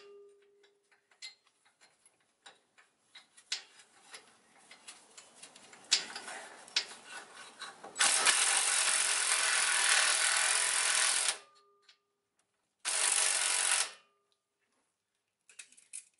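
Cordless impact wrench running in two bursts, first for about three and a half seconds, then again for about a second, tightening the panhard bar bolt. Light clicks and taps of tools and parts come before it.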